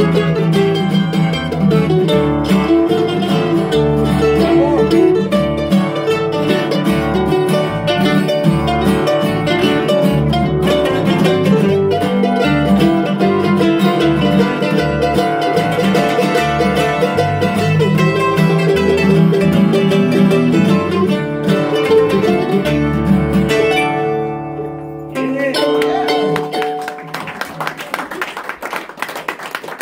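Live bluegrass instrumental on mandolins, acoustic guitar and electric bass guitar, with fast picked mandolin lines over a steady bass line. The tune stops about 24 seconds in, and a last chord rings on briefly.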